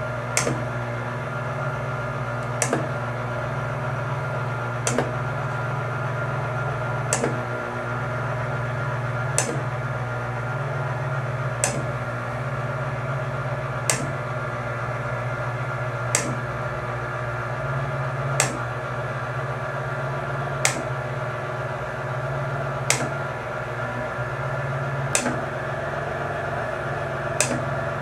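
Stenner peristaltic chemical feed pump running on its low feed rate as the new pump tube is drawn around the roller assembly: a steady motor hum with a sharp click about every two and a quarter seconds.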